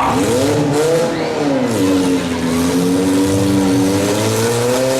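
Six-cylinder demolition derby car engines revving hard, the pitch swinging up and back down in the first couple of seconds, then holding high and rising slightly near the end.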